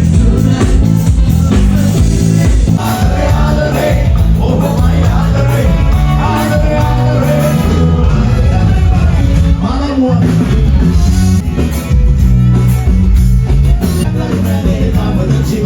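Band music with a heavy, steady bass line; a singing voice comes in about three seconds in.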